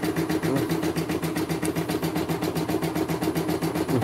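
CNY E900 computerised embroidery machine running, its needle stitching in a quick, even rhythm with a steady motor hum.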